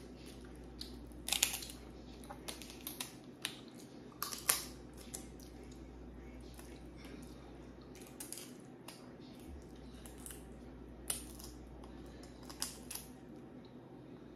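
Close-miked eating of a seafood plate: irregular sharp clicks and small crackles from handling and chewing the food, about a dozen spread unevenly, over a faint steady hum.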